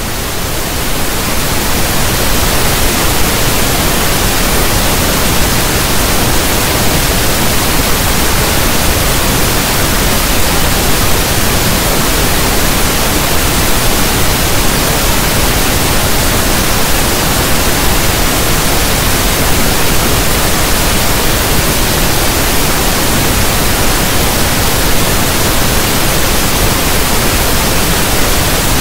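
Steady pink noise, a static-like hiss like a radio not tuned to a station, fading up over the first second and then holding level.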